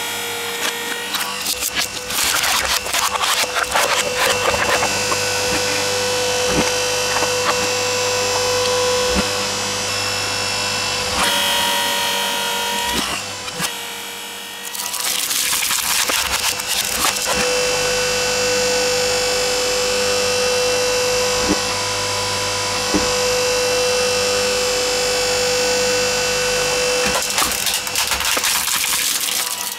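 Hydraulic press running with a steady motor whine and hum while its ram crushes hard plastic toys. Bursts of cracking and snapping plastic come about a second in, again just past halfway, and near the end.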